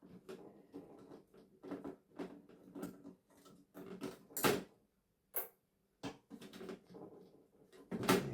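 Irregular small clicks, taps and knocks of hand tools against the plastic and metal parts of a broken television being taken apart and searched for screws, with a few sharper knocks about four and a half, five and a half and eight seconds in.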